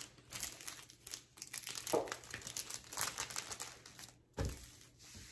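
Crinkling of the clear plastic cover film on a diamond painting canvas as hands handle and smooth it, with a soft thump about four seconds in.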